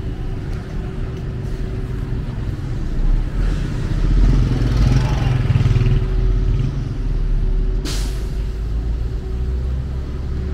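Street traffic: a steady low engine rumble that swells as a vehicle passes close about halfway through, then eases off. A short, sharp hiss cuts in near the end.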